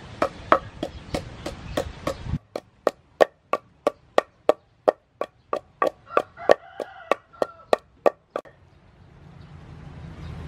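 Long wooden pestle pounding red chilies in a large wooden mortar: a steady run of dull knocks, about three a second, stopping about eight and a half seconds in.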